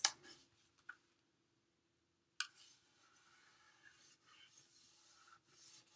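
Faint rubbing of hands pressing and smoothing a glued cardstock panel onto a card base, with a sharp click a little over two seconds in, over a faint steady hum.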